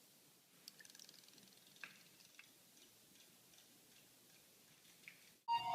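Near silence with a few faint, scattered clicks. Near the end a loud electronic melody starts abruptly.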